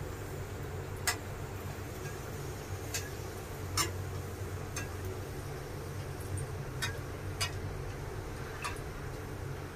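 A puri deep-frying in hot oil in a kadai while a steel slotted spoon works it. Scattered sharp clicks and pops, about seven of them, sound over a steady low hum.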